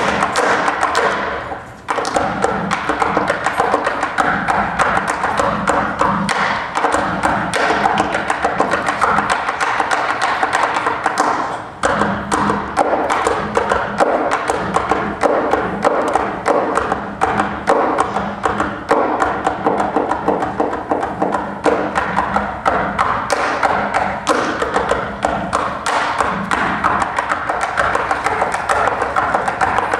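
Tap shoes striking the stage in quick rhythmic taps over backing music. The sound drops away briefly twice, about two seconds in and again near twelve seconds.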